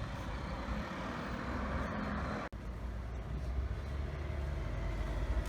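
Steady low rumble of road traffic, cut off for an instant about halfway through.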